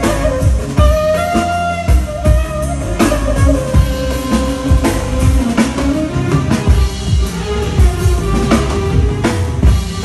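Clarinet melody over a Korg keyboard accompaniment with a steady drum beat, Bukharian wedding music. The clarinet drops out around the middle and the keyboard and drums carry on.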